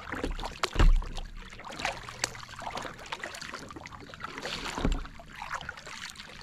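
Double-bladed kayak paddle dipping and pulling through lake water stroke after stroke, with rough splashing and drips. Two dull thumps break through, the loudest about a second in and another near the five-second mark.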